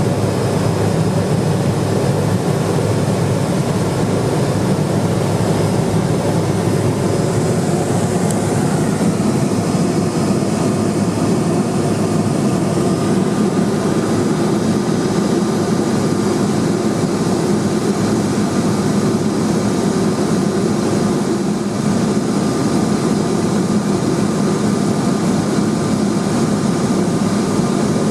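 Cessna 210 Silver Eagle's single Rolls-Royce 250 turboprop and propeller running steadily in flight: a constant drone with a faint high whine, without letup.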